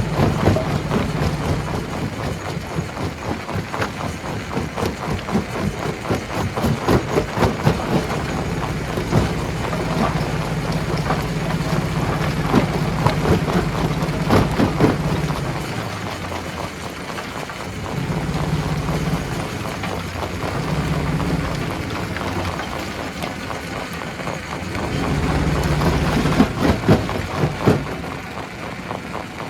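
Stone crusher running with a low, steady machine drone that fades and comes back several times. Dense, irregular knocking and clatter of rocks being broken and tumbling through it runs throughout.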